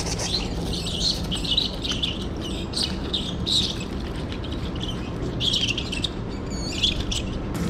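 Repeated short, high-pitched animal squeaks in quick, irregular bursts, over a steady low hum.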